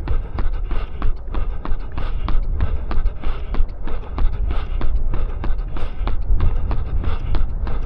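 A runner's footfalls at a steady cadence of about three steps a second, over a constant low rumble of wind on the microphone.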